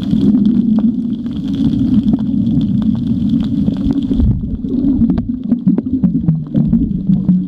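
Underwater sound picked up through a camera's waterproof housing: a steady low rumble with a faint high whine that stops about four seconds in, and scattered sharp clicks throughout.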